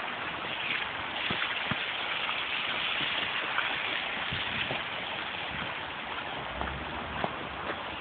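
Steady street traffic noise: car tyres hissing on a wet, slushy road, with a few faint knocks.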